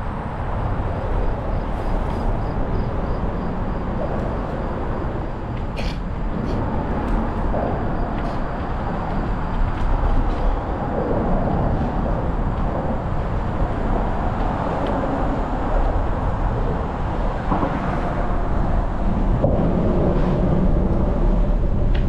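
A mountain bike riding along a paved trail: wind rumbling on the microphone and tyre noise, mixed with the hum of road traffic. A few sharp clicks stand out.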